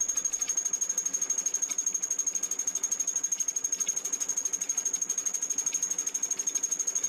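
Fly cutter on an Archdale vertical milling machine taking a final pass across a cast iron face: a fast, even chatter of about twelve cutter strikes a second as the single tool hits the work each turn, with a steady high-pitched tone above it.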